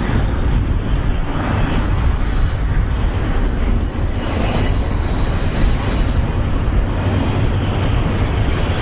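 Double-stack container freight train running past: a steady low rumble of wheels on rail and the moving cars, with no single loud event.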